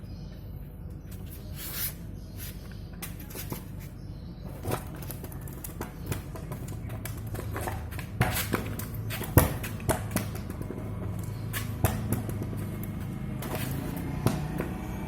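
Juggling balls slapping into the hands and thudding down, irregular sharp hits at uneven intervals, a few louder ones in the second half.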